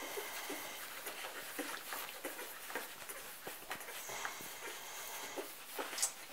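Young golden retriever puppies nursing from their mother, a scatter of small squeaks, whimpers and clicks, with one sharper, louder sound near the end.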